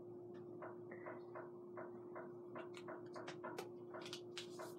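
Faint ticking, a few ticks a second, growing quicker and sharper from about halfway through, over a steady low hum.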